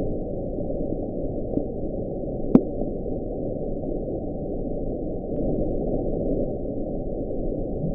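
Deep-sea underwater recording: a steady, muffled low rumble of ocean noise, with one sharp click about two and a half seconds in.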